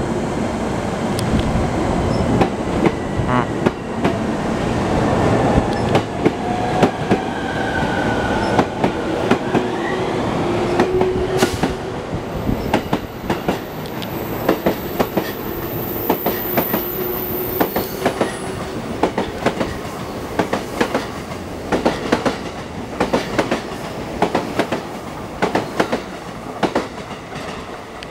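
E231/E233-series electric train pulling away and passing close by: a steady running rumble with tones gliding up in pitch as it gathers speed, a high squeal for several seconds midway, and a fast clickety-clack of wheels over rail joints through the second half.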